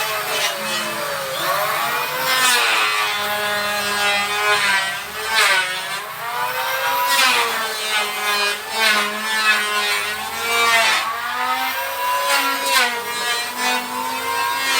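Small electric power tool cutting teak wood. The motor's whine dips in pitch each time it bites into the wood and climbs back as it frees up, over and over, with a few harsh rasping cuts.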